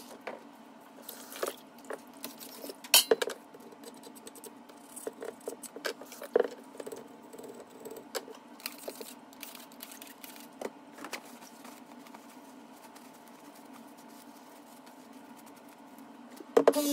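Light clinks and taps of small steel lathe parts being handled and set down, scattered and irregular, with the loudest knock about three seconds in, over a faint steady hum.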